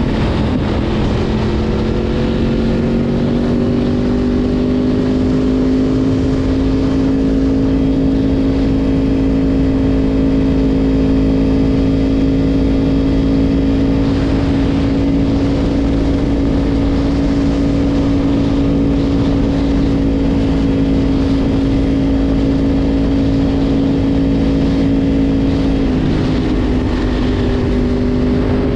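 Yamaha R1 sport bike's inline-four engine running under way at a steady cruise. The note dips about a second in and climbs gently back to a steady pitch, then steps down slightly near the end.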